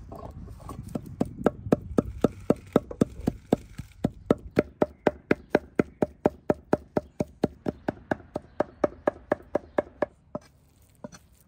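Knife chopping food on a cutting board in a steady rhythm of about four strokes a second, stopping shortly before the end.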